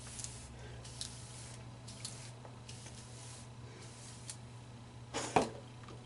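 Wide-tooth comb drawn through wet, detangled curly hair: faint, short scratchy strokes roughly once a second. A louder sharp knock comes about five seconds in.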